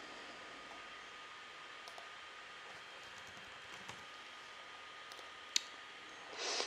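Faint typing on a computer keyboard and mouse clicks over low room hiss, with one sharper click about five and a half seconds in and a short hiss near the end.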